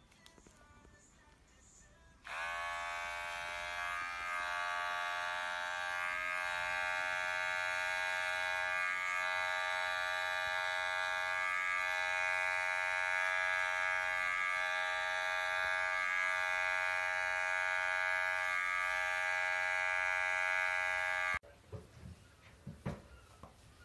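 Handheld electric pet clippers buzzing steadily while shaving a cat's fur, starting about two seconds in and stopping abruptly near the end.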